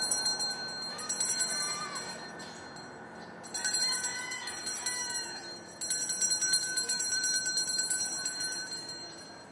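Ice cream vendor's small hand bell rung rapidly in three spells of a few seconds each, the sorbetero's call to customers.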